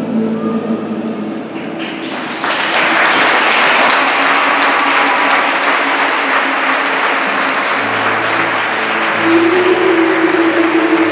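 Audience applauding in an ice rink, starting about two seconds in, over the skater's program music, which comes back stronger with held low notes about eight seconds in.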